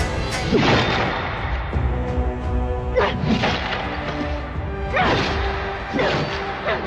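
Dramatic background music with held notes, cut by five or six heavy blows of a hatchet striking a wooden coffin, each a sudden thud with a swish, spaced about one to two seconds apart.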